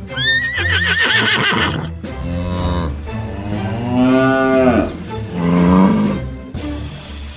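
A horse whinny with a high, wavering pitch, then a cow mooing three times, the middle moo the loudest and longest, over background music.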